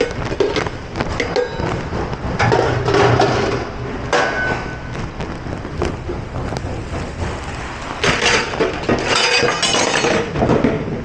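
Dishes, glasses and utensils clinking and clattering during dishwashing, with several longer bursts of hissing noise, the loudest near the end.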